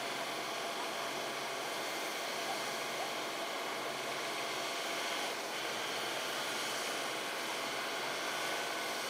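Heavy diesel engine running steadily at a distance, a low hum under a constant hiss.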